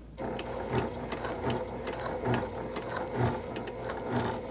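Sewing machine starting up and stitching slowly and steadily, a steady motor hum with a regular knock from the needle mechanism.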